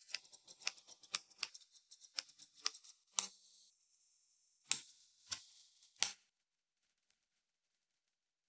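Scissors snipping: a quick run of sharp snips for about three seconds, then three more spaced snips before it goes quiet.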